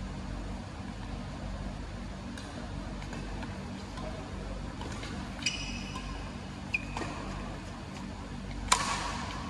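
Badminton racket hitting a shuttlecock: one sharp hit near the end, after a few faint clicks and brief squeaks, over a steady low hum.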